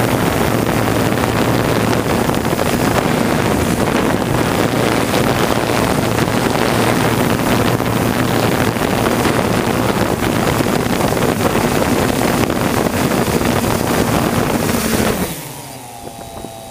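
3DR Solo quadcopter's rotors running loud and steady close to the microphone. About 15 s in the drone lands and the motors spin down, with a falling whine that fades out.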